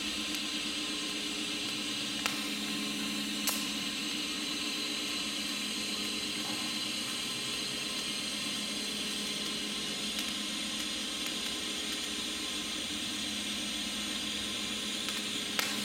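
TIG welding arc on steel with filler rod being fed, filling low spots along the welded edges of a chassis: a steady hiss with a low steady hum underneath, and two faint clicks in the first few seconds.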